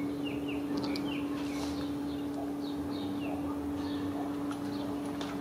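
Steady low hum, with small birds faintly chirping in the background in short falling chirps, several in quick pairs.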